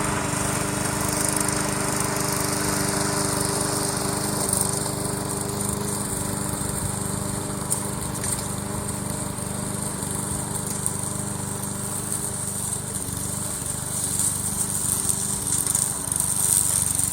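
Homemade remote-control lawn mower running with a steady, even-pitched drone as it drives up a grassy slope. It grows louder and more uneven near the end.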